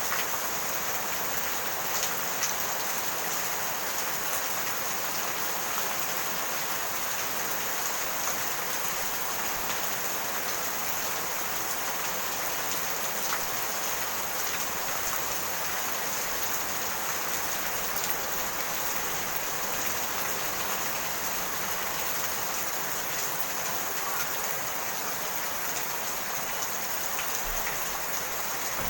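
Steady rain falling on surfaces, a continuous even hiss with scattered individual drop ticks.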